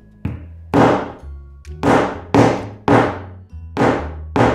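Hammer striking a metal eyelet-setting tool, about seven hard, sharp blows at uneven intervals, each a knock with a short ring. The blows flare the two halves of a metal eyelet together through the apron fabric.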